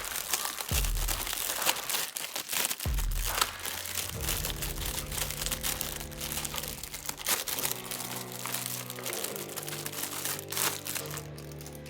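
Background music with steady held notes, over frequent crinkling and sharp clicks of plastic toy parts and packaging being handled.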